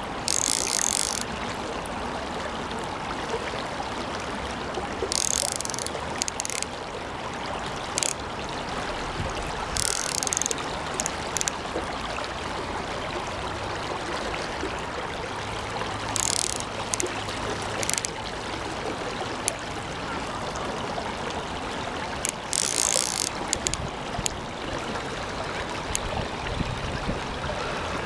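Short bursts of a fly reel's ratchet clicking every few seconds as line goes on or off the reel while a hooked chub pulls against a bent rod, over the steady rush of a shallow stream.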